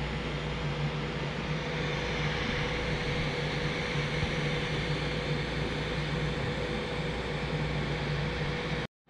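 Creality CR-10 Mini 3D printer running a print: a steady whir from its hot-end and part-cooling fans over a low, even hum. It cuts off abruptly near the end.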